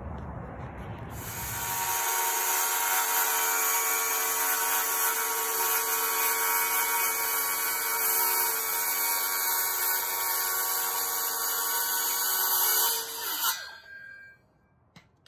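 DeWalt cordless circular saw cutting through a sheet of plexiglass: the motor starts about a second in, whines steadily through the cut, then stops and spins down near the end.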